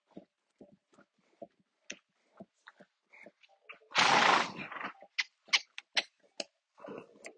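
An animal close to the microphone: a string of small irregular clicks and ticks, with one loud rushing blow of breath lasting about half a second, about four seconds in.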